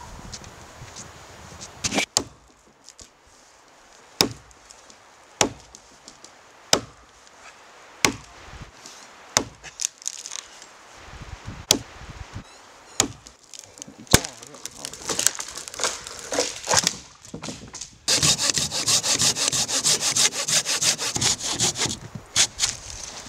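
Axe chops on a dry standing pole, a sharp wooden knock every second or so, coming faster later on. Then a hand saw cuts through a small trunk near the ground with quick, even strokes.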